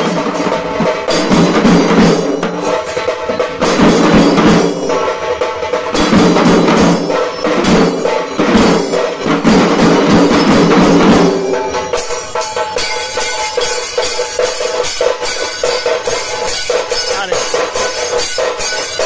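A troupe of large stick-beaten dhol drums and tasa drums playing together in a fast, dense rhythm. About eleven seconds in, the heavy drumming drops back and a quieter, lighter beat carries on.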